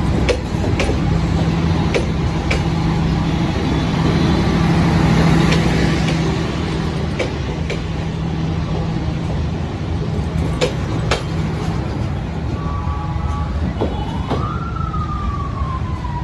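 A diesel-hauled train passing, its engine running with a steady low hum and the wheels clicking irregularly over rail joints. About fourteen seconds in, a siren-like tone rises quickly, then slowly falls away.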